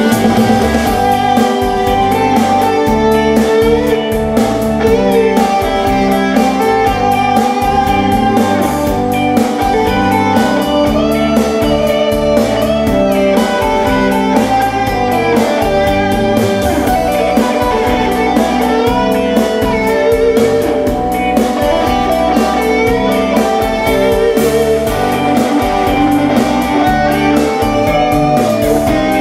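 A band playing an instrumental break between sung verses of a song, with a guitar carrying the melody over a steady accompaniment.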